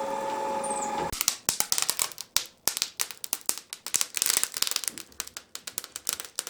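Ecovacs Deebot M81 Pro robot vacuum running with a steady motor whine, switched off about a second in and cutting out abruptly. Then irregular clicking and crackling.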